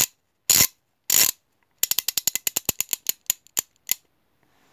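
Logo sound effect of mechanical clicks: three loud clacks about half a second apart, then a fast run of sharp clicks that slows and stops about four seconds in.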